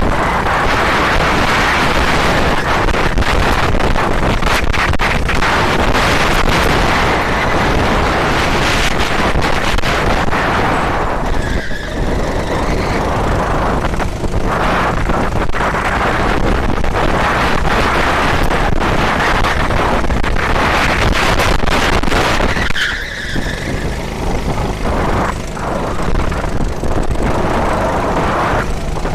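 Onboard audio from a racing model's FPV camera: a loud, steady rush of motion noise and wind on the microphone, with short dips about twelve and twenty-three seconds in.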